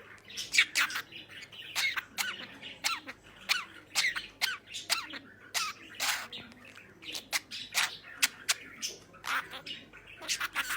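Pet budgerigar chattering: a fast, irregular run of short chirps, squawks and clicks, some sliding down in pitch.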